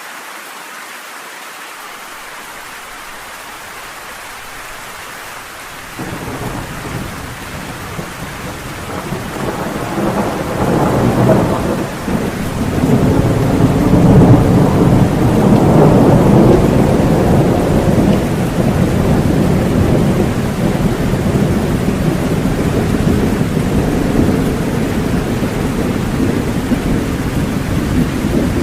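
Steady rain falling, with a long rolling peal of thunder that comes in about six seconds in, swells to its loudest midway and slowly fades to a low rumble under the rain.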